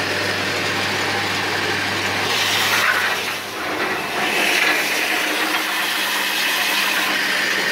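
Homemade dowel belt sander, driven by a half-horsepower electric motor, running as a wooden broom handle is fed through it and sanded: a steady motor hum under the hiss of the abrasive belt, with louder hissing rushes about two and a half and four and a half seconds in.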